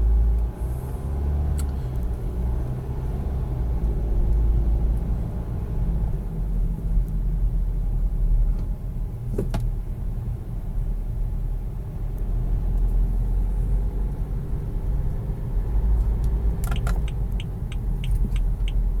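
Low rumble of a car heard from inside the cabin, engine and road noise, with the engine still running because the automatic stop-start system does not shut it off. A single click comes about halfway, and a quick run of even ticks near the end.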